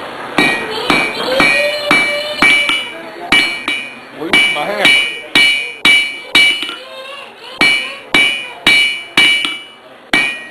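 Hand hammer striking red-hot steel on an anvil while forging a pair of tongs, about two blows a second with a couple of brief pauses. Each blow leaves a high, clear ring from the anvil.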